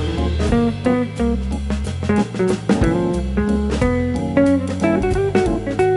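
Upbeat instrumental background music: plucked guitar over bass and drums.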